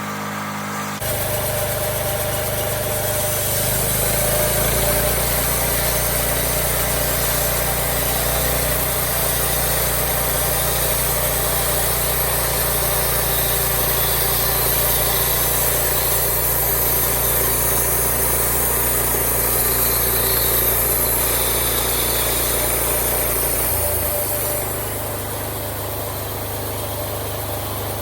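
Engine of a home-made bandsaw mill running steadily, with the blade cutting through a cedar log. The sound gets louder about a second in and settles back down near the end.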